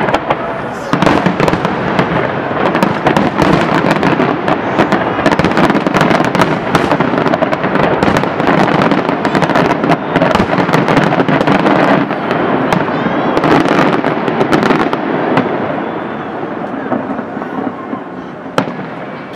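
Fireworks display: a dense barrage of aerial shells bursting in rapid bangs and crackling. It eases off over the last few seconds, with one sharp single bang near the end.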